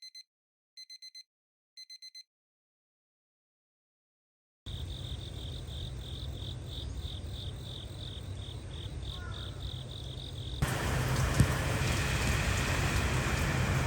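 Three short bursts of electronic beeps, then silence. Then a steady low hum with a rhythmic high insect chirp about three times a second, and about ten seconds in, typhoon rain comes in as a loud steady hiss that covers it.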